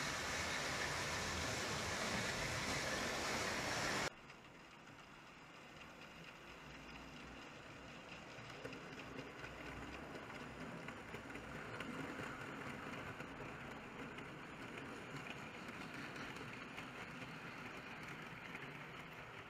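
A loud steady hiss that cuts off suddenly about four seconds in. Then the quieter running of a kit-built OO gauge Somerset & Dorset 7F model steam locomotive and its wagons on the track, motor and wheel noise growing louder as the train passes and easing off a little near the end.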